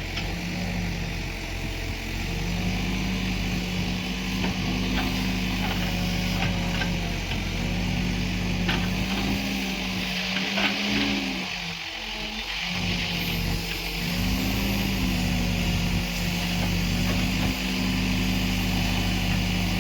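Diesel engine of a backhoe loader working, its note dipping and picking up again every few seconds as the load changes, with a few sharp clanks.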